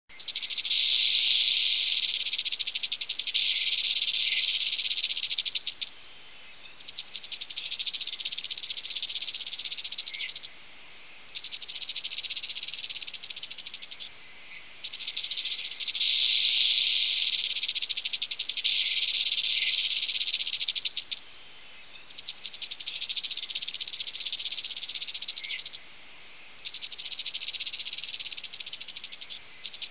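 Snake sound effect: a high rattling hiss in stretches of several seconds, separated by short pauses, the whole sequence repeating about halfway through.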